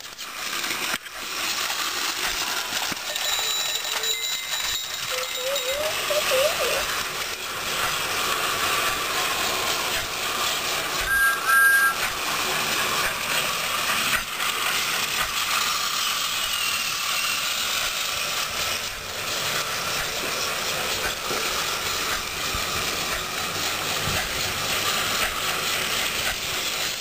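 Battery-powered toy Thomas the Tank Engine train running along plastic track, its small motor and wheels giving a steady mechanical whir and rattle. A brief beep sounds about eleven seconds in.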